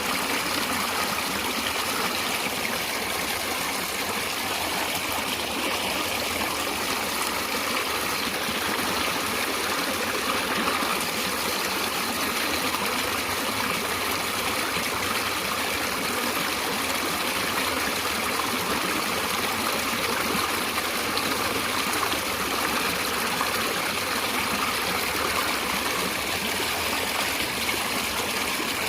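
Stream of water running and trickling steadily, an even rushing with no breaks.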